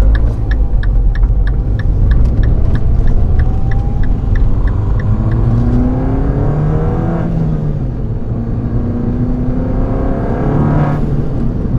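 Mini Cooper S (R56) turbocharged 1.6-litre four-cylinder with a PLM downpipe, accelerating hard. The engine note climbs, drops at a gear change about seven seconds in, then climbs again. An even ticking of about four a second runs through the first half.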